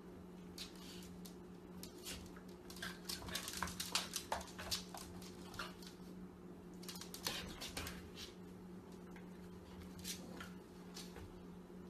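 A corgi puppy's claws clicking and scratching on a laminate floor as it paws at and pushes a small pumpkin around, in irregular clusters of quick ticks, over a steady low hum.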